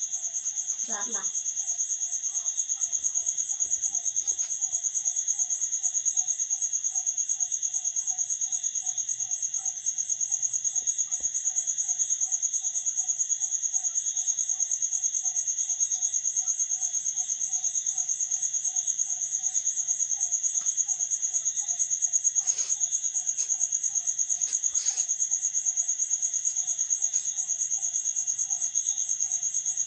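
Crickets trilling steadily in a high, fast-pulsing chorus, with a lower chirping call repeating evenly beneath it. Two brief knocks sound in the last third.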